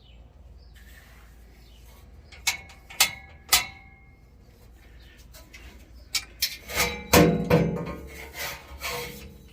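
Metal exhaust pipe knocking and clanking as it is worked onto its hanger and clamp under a pickup: three sharp knocks about half a second apart, then a run of louder clanks with a ringing metallic tone near the end.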